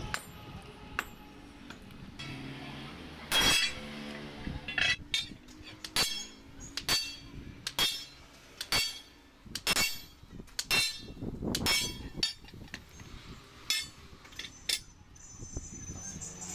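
Sledgehammer blows on a steel truck leaf-spring leaf resting over a steel block, re-arching the sagged leaf to restore its camber. About a dozen blows land roughly one a second, each ringing metallically, the loudest about three seconds in.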